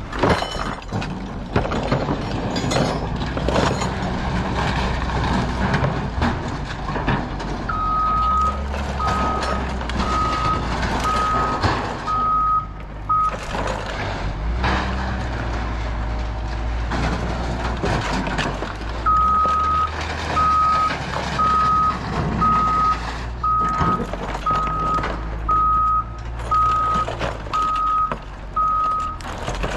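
A vehicle's reverse alarm beeping about once a second, in two runs: one of about six beeps, then after a pause a longer run of about ten, over a steady diesel-type engine rumble, as a truck or yard machine backs up.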